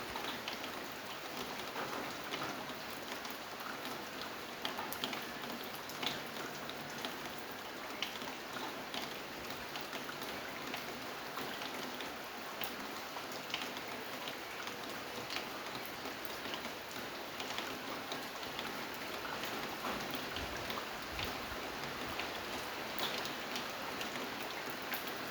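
Steady rain falling, with scattered individual drops ticking on a surface.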